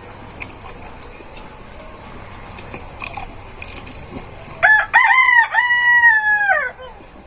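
A rooster crowing once, starting past the middle: a few short notes, then a long held note that falls away at the end.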